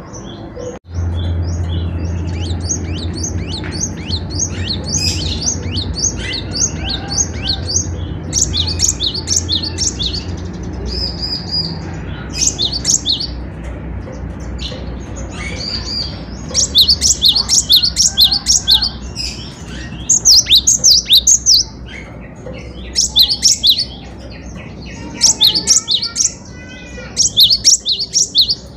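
Cinereous tit (gelatik batu) singing vigorously: rapid, high-pitched repeated notes in short phrases of about a second each, louder and in quicker succession in the second half. A steady low hum runs beneath for the first half, and there is a brief break about a second in.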